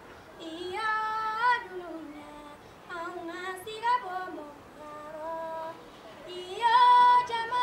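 A young woman singing alone, with no instruments heard, in separate phrases with bending, wavering pitch and held notes. The loudest phrase comes about seven seconds in.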